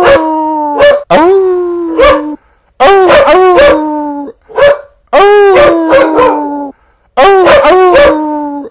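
Coyotes howling and yipping: a run of loud howls, each about a second long and sagging slightly in pitch, breaking into quick warbling yips, with short pauses between bouts.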